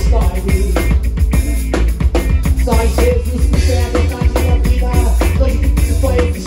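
Full band playing an upbeat song with drums, with a Waldman Turbo 2.0 electric bass heavy and prominent in the low end.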